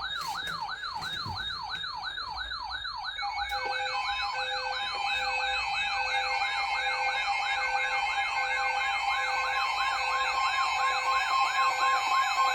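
An electronic siren tone sweeping rapidly up and down, about three times a second, used as an emergency alert signal. About three seconds in, pulsing beeps and steady tones join it and run alongside the sweep.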